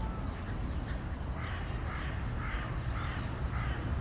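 A crow cawing in the background: a series of about five hoarse caws, roughly half a second apart, over a low steady rumble.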